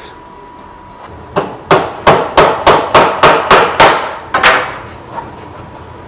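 Claw hammer driving nails through plywood into a wooden lid frame: a quick run of about ten sharp blows, roughly three a second, starting about a second and a half in.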